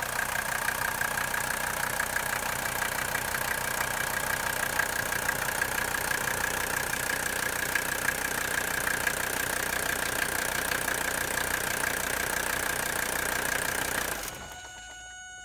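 Mercedes-Benz 300 diesel's five-cylinder OM617 engine idling steadily, with a steady high-pitched whine over the running. The sound stops abruptly near the end.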